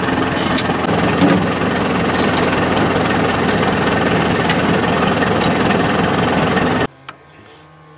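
Steyr 50 tractor's diesel engine idling steadily close by, with a few faint clicks over it. The engine sound cuts off abruptly about seven seconds in.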